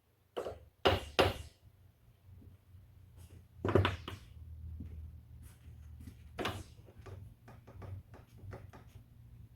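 Several sharp knocks, two close together about a second in, then a scatter of lighter clicks: metal parts and tools being handled and tapped while a tractor's hydraulic hand pump is put back together.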